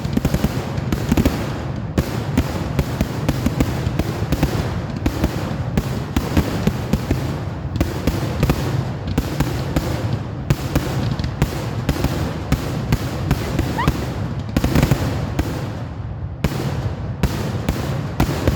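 Fireworks going off in a dense, continuous run of sharp cracks and pops, several a second, over a steady rumble, with one brief rising whistle about fourteen seconds in.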